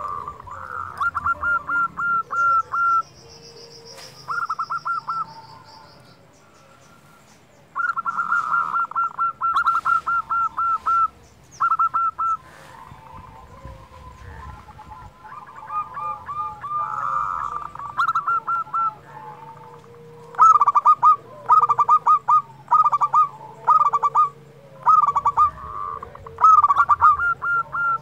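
Zebra dove (perkutut) cooing: repeated phrases of rapid staccato coo notes with short pauses between them, the phrases coming in a steady, even run over the last third.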